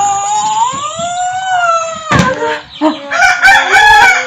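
Roosters crowing in long, overlapping calls that rise and fall in pitch, followed about two seconds in by a run of short, choppy chicken calls.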